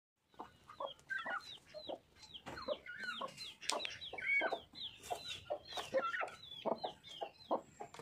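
A hen clucking in short, low notes while her chick peeps over and over, high, falling cheeps about three a second.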